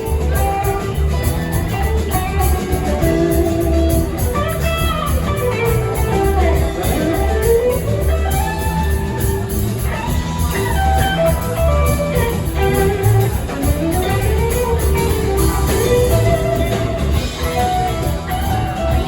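Live rock band playing an instrumental jam: an electric guitar plays a lead of sliding, bending lines over steady bass and drums.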